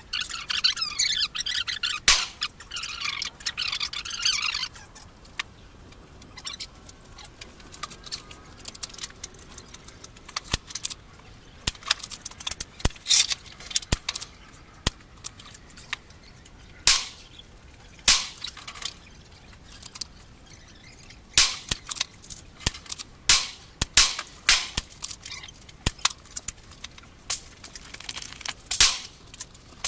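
Rifle shots: many sharp cracks at irregular intervals, some close together. A high chirping runs for the first four seconds or so.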